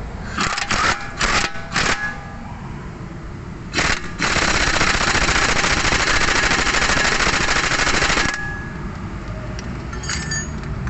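Impact wrench hammering, first in four short bursts, then in one steady run of about four seconds that stops abruptly.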